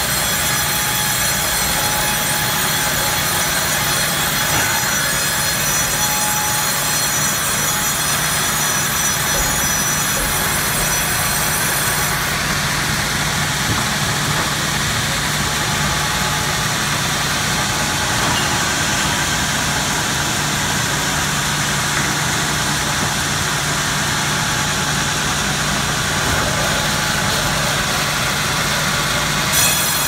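Log band sawmill running steadily, sawing an oak log fed through the blade on a carriage. The high whine of the cut stops about twelve seconds in, the mill runs on with a steady hum between passes, and the whine returns just before the end as the next cut begins.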